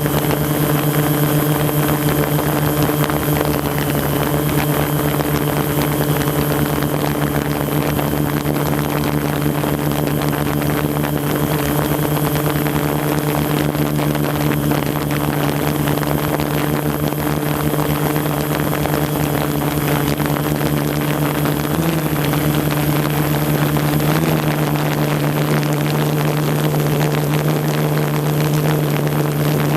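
Quadcopter drone's motors and propellers humming steadily, with the pitch briefly dipping twice a couple of seconds apart past the middle.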